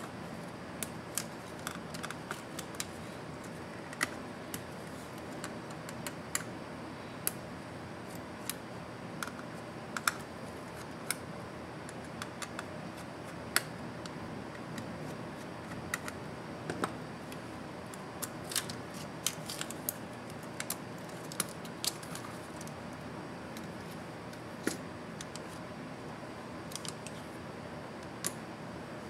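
Irregular small clicks and taps of hands handling the internal parts of an opened HP EliteBook x360 1030 G2 laptop during disassembly, over a steady low hum.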